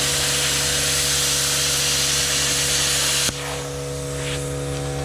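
Plasma cutter hissing as it cuts through a steel truck frame rail, over the steady hum of the machine. The cutting hiss stops suddenly about three seconds in, leaving the hum.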